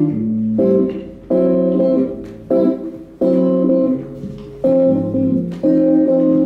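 Acoustic guitar strumming chords, each chord struck sharply and left to ring, with an electric bass guitar playing low notes underneath.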